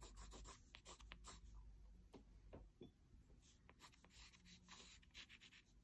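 Watercolor pencil scratching across paper in a run of short, quick strokes, faint.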